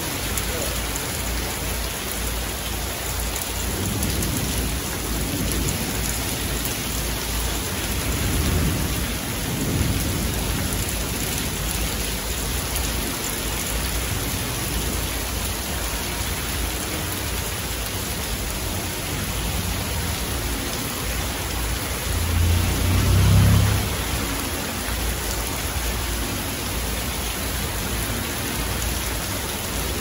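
Heavy rain falling steadily in a thunderstorm, with low rumbles of thunder swelling up now and then, the loudest about two-thirds of the way through.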